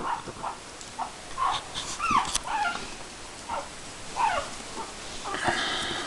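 Puppies whimpering and yipping: a string of short, high cries, some falling in pitch, with a few sharp clicks among them.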